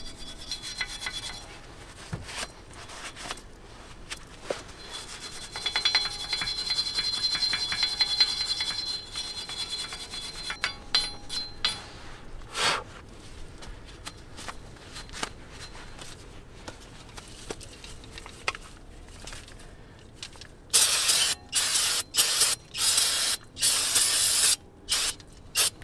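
Small metal wire brush scrubbing rust and dirt off the bare front wheel hub flange, cleaning the rotor mating surface before a new brake rotor goes on. The strokes come in quick runs, with a louder, harsher stretch of scrubbing near the end.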